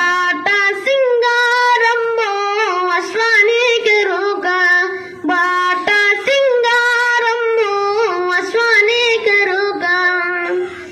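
A boy singing solo and unaccompanied into a microphone, a high voice holding long notes that bend and waver in pitch, with short breaks for breath.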